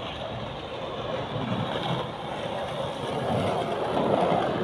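Steady wash of outdoor city-street noise, rising a little near the end.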